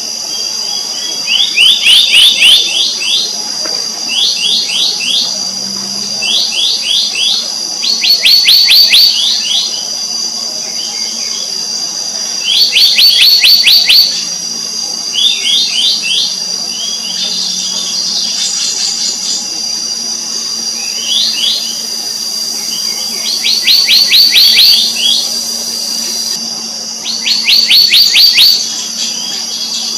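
Black-naped monarch calling: short, fast runs of sharp, high notes, repeated every couple of seconds. A steady high insect drone runs underneath.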